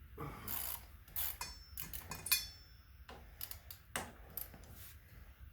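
Irregular clicks, clinks and scrapes of metal hand tools working on a motorcycle's front wheel and fork, with a brief metallic ringing about two seconds in.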